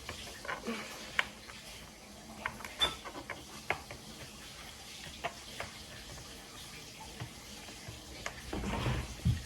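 Small scattered clicks and taps of a screwdriver and tiny screws being worked out of a laptop's bottom case and set down, over a faint hiss, with a louder rustling bump near the end.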